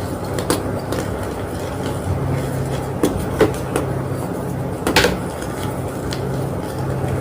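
Homemade gym chalk block being crunched and crushed, giving a few sharp crunches, the loudest about five seconds in, over a steady low background hum.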